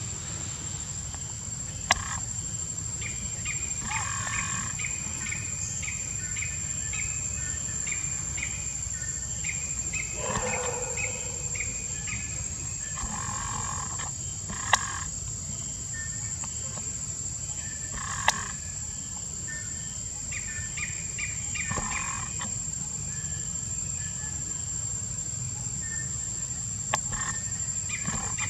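Forest ambience: a steady high insect whine runs under runs of short, repeated chirping calls and a low rumble. A few sharp clicks stand out, the loudest moments.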